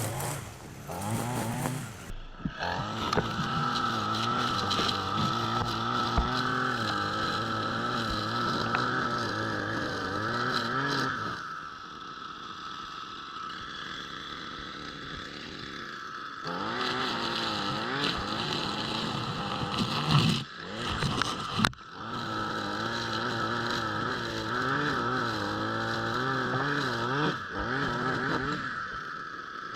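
Small petrol engine of a yard power tool running, its pitch rising and falling as it works. It drops away for a few seconds about halfway through, and a couple of sharp knocks come shortly after.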